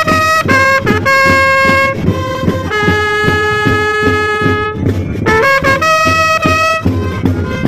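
Drum and bugle corps playing: a brass bugle sounds loud and close, playing a line of held notes with one long note in the middle, over a steady drum beat of about four strokes a second.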